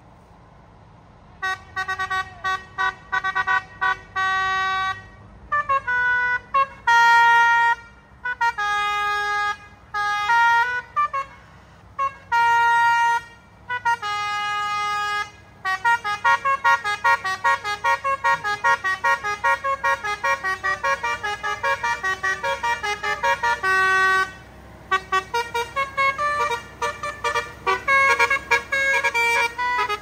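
A truck's Basuri 'telolet' multi-tone musical horn playing a tune. It starts about a second and a half in with short bursts of notes separated by pauses, then turns into a fast, nearly unbroken run of notes from about halfway through.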